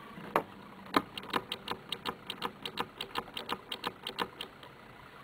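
Small hand-operated switch clicking in quick succession, about five light clicks a second for some four seconds, each press stepping a seven-segment LED counter on through its digits.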